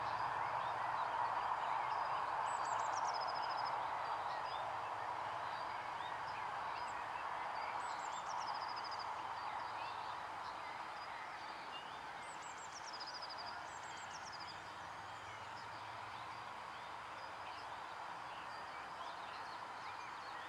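Outdoor birdsong: a small songbird sings short, high, descending trilled phrases about four times, among scattered faint chirps, over a steady distant din of bird calls that slowly fades.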